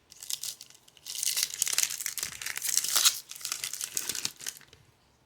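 Foil wrapper of a baseball card pack being torn open and crinkled, in crackly spurts that stop shortly before the end.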